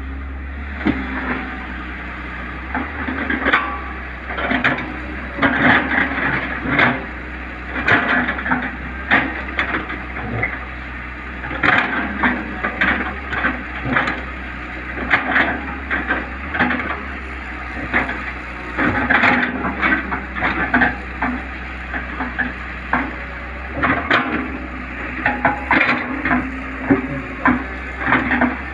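Tata Hitachi 210 excavator digging, its diesel engine running with a steady low hum while the bucket scrapes and breaks into hard dry earth and roots. Frequent clusters of sharp cracks and clatter come from the digging.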